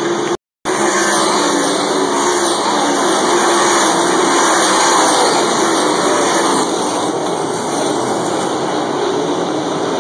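Winged 410 sprint cars racing past on a dirt oval, their 410-cubic-inch V8 engines loud and continuous. The sound cuts out completely for a split second near the start, then swells to its loudest around the middle and eases slightly later on.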